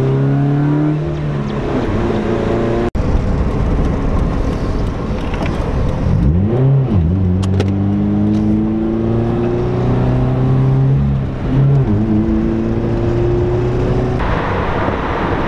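Toyota 86's 2.0-litre flat-four breathing through an Invidia N1 cat-back exhaust, heard from inside the cabin while driving: a deep exhaust note that climbs steadily in pitch as the car pulls, then drops back and climbs again, several times, at moderate revs kept under about 4,000 rpm for engine break-in.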